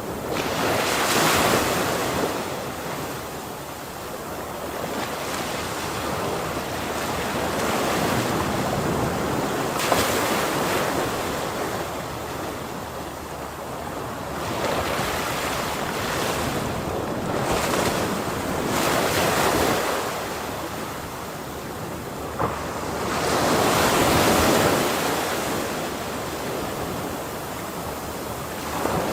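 Ocean waves breaking and washing on the shore, the surf swelling and ebbing in a rushing wash, with louder breaks about every five to ten seconds.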